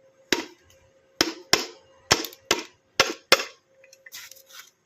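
Hammer blows on metal, about seven sharp strikes at an uneven pace, followed by softer clinking near the end. The blows fall on an e-rickshaw's rear gearbox as it is knocked apart to get at the crown and pinion.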